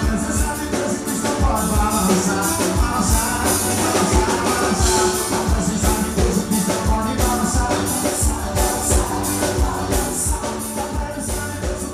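Upbeat forró music played by a band, an instrumental stretch with a steady, regular drum beat under sustained melody lines.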